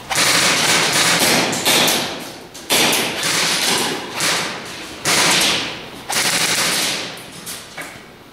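Airsoft guns firing fully automatic, about six bursts of roughly a second each in quick succession, stopping just before the end.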